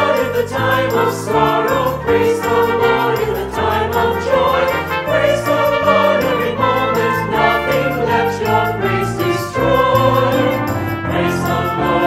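Mixed virtual choir singing a church anthem with instrumental accompaniment that includes a trumpet, with a light pulse of jingling percussion behind the voices.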